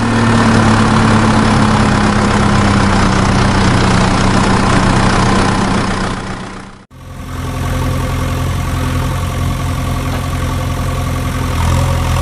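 A dubbed-in vehicle engine sound effect running steadily. It cuts off abruptly about seven seconds in and starts again straight away at a slightly different pitch.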